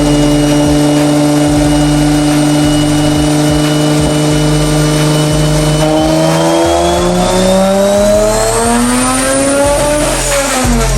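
Mitsubishi 3000GT's turbocharged V6 running under power: it holds a steady pitch for about six seconds, then revs climb steadily, with a thin high whine rising along with it, until the pitch drops sharply near the end, as at a gear change.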